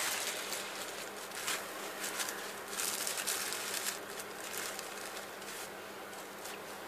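Rustling and crinkling of a honeycomb tissue-paper ball decoration and its ribbon being handled and turned over, busiest about three to four seconds in.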